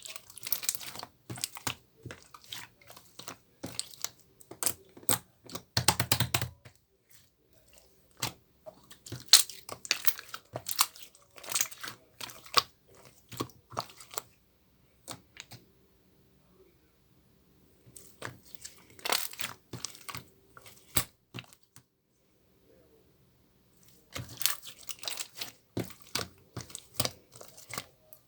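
Bursts of crinkling, crackling and clicking, as from something being handled or torn, stopping for a few seconds twice.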